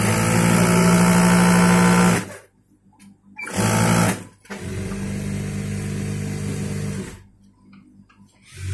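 TYPICAL industrial sewing machine stitching in three runs: about two seconds at speed, a brief half-second burst, then about two and a half seconds somewhat quieter, with short pauses between as the cloth is guided.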